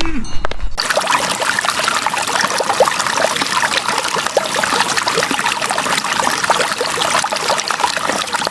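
Water pouring and trickling steadily for several seconds, starting about a second in, just after the tail end of a cow's moo.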